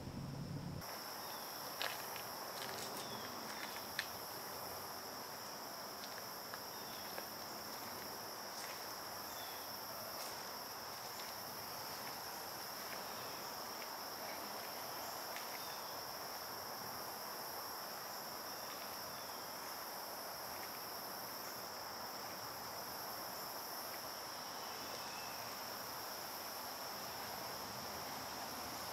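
A steady, high-pitched insect chorus trilling without a break, starting about a second in. A few sharp ticks come in the first four seconds.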